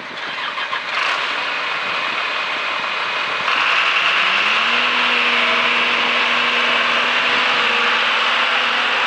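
Terex SP2010 single-drum vibratory roller's diesel engine running as the machine drives. It gets louder about a second in and again a little past three seconds, where its pitch rises and then holds steady.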